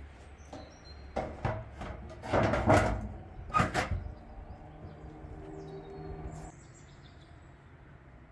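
A flat door panel being set into the mouth of a clay dome oven: a run of scrapes and knocks, loudest in the middle, with a few bird chirps.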